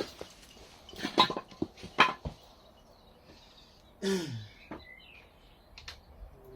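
Metal hand tools clinking against the bike's fittings, a handful of sharp clicks in the first couple of seconds and a few faint ones near the end. About four seconds in comes a short sigh falling in pitch.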